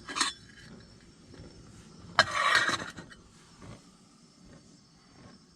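Handling of a gas-canister camping stove and a lidded pot: a brief noisy burst at the start, then a louder rush of noise lasting under a second about two seconds in.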